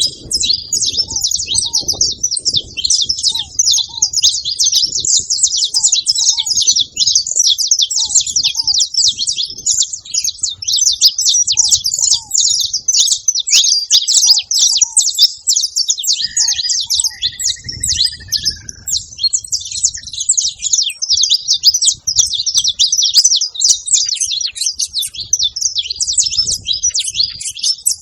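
Saffron finches singing, a dense, continuous high chatter of chirps. Soft short low notes, about one a second, run under it in the first half, likely ground doves cooing. About two-thirds of the way in comes a brief run of falling whistles.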